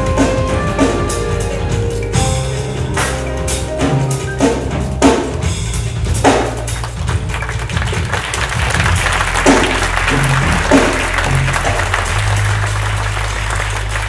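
Music with a heavy drum beat and sustained bass; from about halfway through, a dense hiss of audience applause rises under the music.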